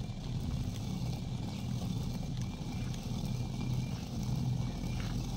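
Hand quern of two round stones turned by its wooden handle, the upper stone grinding wheat against the lower: a steady low grinding rumble.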